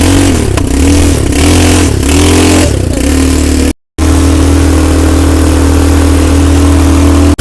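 Small engine of an ATV (quad bike) running close to the microphone. It revs up and down about four times, then after a brief break it runs at a steady speed.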